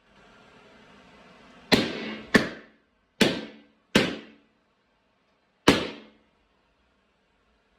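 Five sharp cracks, irregularly spaced, each dying away within about half a second, after a faint steady hiss.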